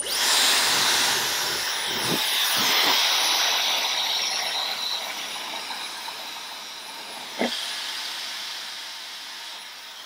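Dyson Supersonic hair dryer blowing into hair rolled on a round brush: a steady rushing hiss that starts suddenly and slowly grows quieter in the second half. A few short knocks from handling the dryer and brush, the sharpest about seven and a half seconds in.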